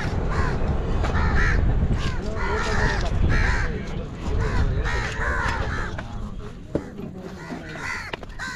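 A flock of crows cawing over and over, many calls overlapping, under a low rumble. Two sharp knocks come near the end.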